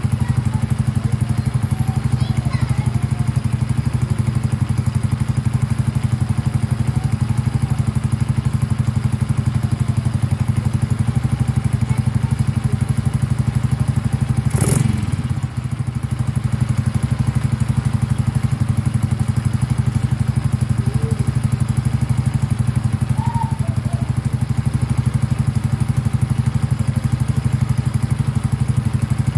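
Suzuki Raider J Fi 115's single-cylinder four-stroke engine idling steadily with its throttle body open to the air, freshly set to 0.04 mm intake and 0.11 mm exhaust valve clearance. A brief rush of noise cuts in about halfway through.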